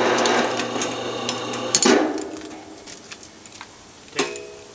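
Steel clanks with ringing: a loud metal-on-metal clank that rings for about two seconds and ends in a second clank, then one more ringing clank near the end, as a steel I-beam and its beam clamp are knocked and set down.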